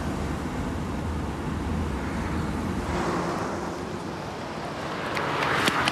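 Road noise from a car driving on a wet road: a steady low rumble. About three seconds in, the rumble drops away and a hiss rises toward the end, with a few sharp clicks.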